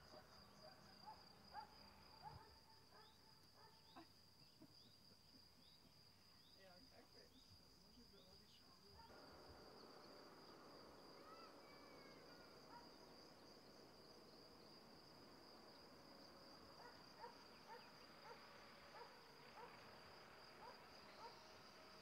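Faint, steady high-pitched trill of crickets, with a few faint short chirps scattered through.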